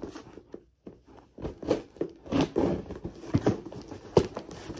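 A taped-up package being ripped open by hand: tape and packaging tearing and crinkling in irregular rips and crackles, sparse at first and coming thick and fast from about a second and a half in.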